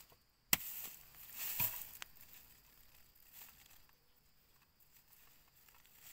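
A hoe blade strikes into dry soil once about half a second in, followed by a second or so of earth and dry grass scraping and crumbling. After that only faint rustling as a hand works through the loosened soil.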